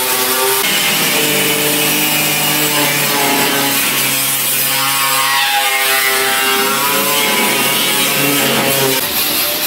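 Angle grinder with an abrasive disc grinding into rusty car-body steel. The motor whine stays loud and steady, dropping in pitch and recovering about halfway through and again near the end as the disc is pressed harder into the metal.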